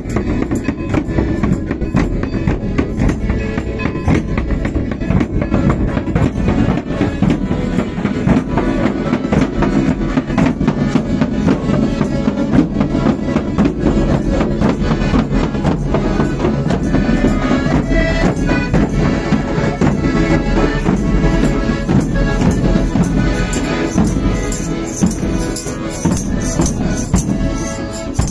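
A procession pasacalle band playing: accordion with large bass drums and tambourines jingling to a steady marching beat.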